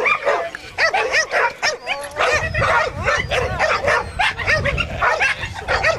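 Several dogs barking and yelping in quick, overlapping succession, the calls short and high-pitched.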